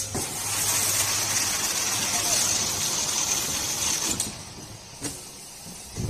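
Semi-automatic flap-folding carton sealer running as a carton is fed through: a loud, steady hissing rasp for about four seconds that cuts off suddenly, followed by a few light knocks.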